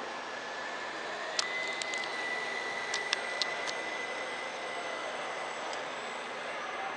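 Lightning V2 F3P indoor aerobatic model plane's electric motor and propeller whining with a thin, steady high tone that steps up slightly about a second and a half in. A handful of sharp clicks come between about one and a half and four seconds in.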